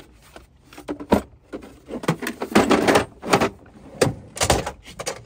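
A plastic tool case and loose tools knocking about in a metal drawer, then metal drawers of a truck tool cabinet sliding shut and open, with a series of sharp clunks and a rattling slide in the middle.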